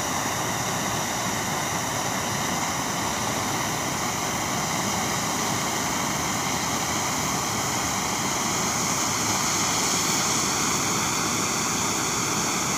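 Handheld gas torch flame burning with a steady hiss as it heats a lump of sodium metal in a spoon to melt it.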